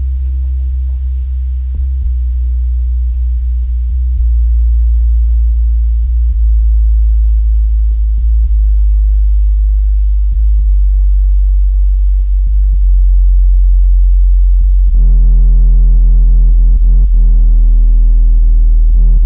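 Paradigm Monitor 90P speakers, with three 8-inch woofers each, playing very deep steady bass tones that step from one pitch to the next and grow louder. About three-quarters of the way through, a buzzy stack of overtones joins the bass.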